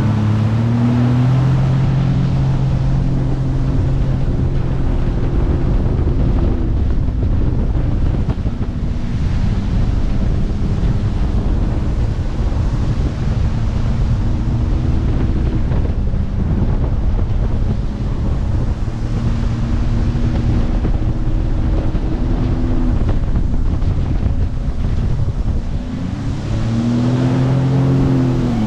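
Jet ski engine running under way, its pitch rising and falling with the throttle several times, over rushing water and wind noise on the microphone.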